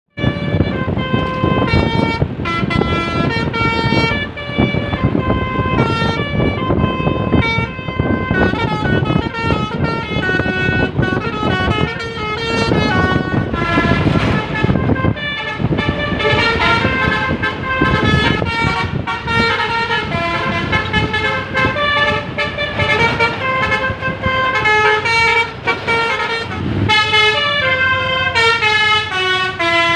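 Bus basuri horn, the multi-tone melody horn of Indonesian buses, played by hand like a pianika: a continuous tune of short stepped notes over the low rumble of the bus engine, with quick falling runs near the end.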